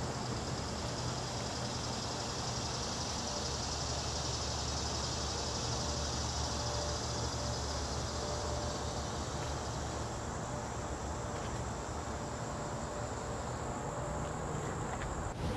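Steady high-pitched chorus of insects such as crickets, over a low rumble; the chorus grows weaker past the middle and cuts off abruptly just before the end.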